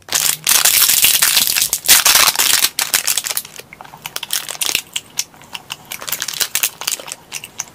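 Close-up ASMR chewing of chocolate-coated gummy truffle candy: dense crunching for about the first three seconds, then a run of quieter, separate clicks as the chewing goes on.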